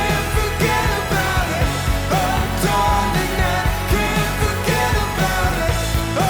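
Background music: a pop-rock song with a steady beat.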